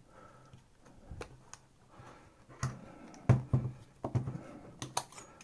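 Scattered light clicks and taps of hands handling a Zeiss Contaflex Super B camera body as its back is worked off, with a few sharper clicks past the middle.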